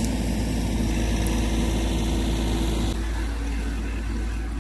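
Bobcat E42 mini excavator's diesel engine running steadily, a little quieter from about three seconds in.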